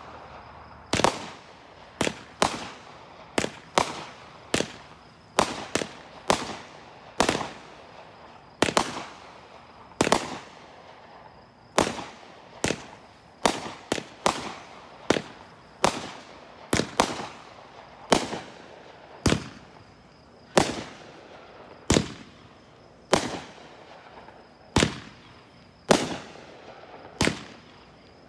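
Chain-fused consumer fireworks firing shot after shot: sharp bangs about once a second, sometimes two close together, each trailing off in a short echo.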